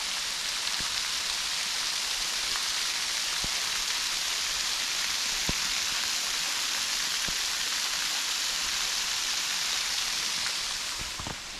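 Small waterfall splashing into a creek: a steady rushing hiss of falling water that gets quieter near the end.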